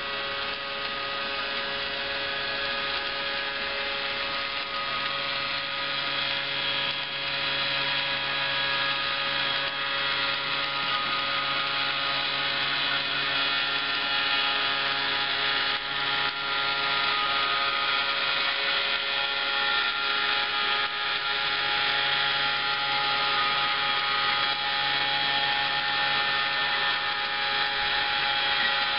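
Small electric motor and gearing of a Meccano model running steadily as it turns the square, a continuous mechanical whine with a lower hum that comes and goes.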